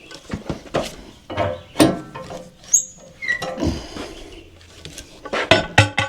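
Metal parts of a portable sawmill being handled and set: irregular clanks and clicks, with a couple of short squeaks about halfway through.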